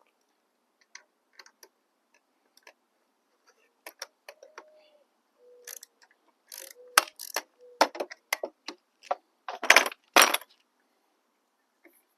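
Wrenches and sockets working on motorcycle exhaust fasteners, making irregular metal clicks, ticks and clinks. Louder scraping clatter comes about ten seconds in.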